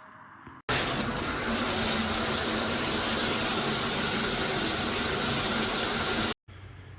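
Shower head spraying water: a loud, steady rush that starts abruptly about a second in and cuts off abruptly near the end.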